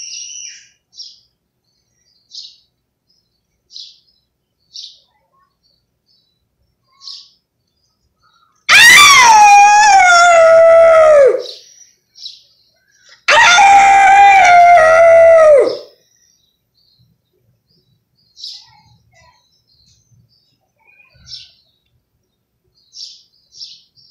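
A person's loud wordless call, given twice, each about two and a half seconds long: high and wavering, then dropping in pitch at the end. Small birds chirp faintly between the calls.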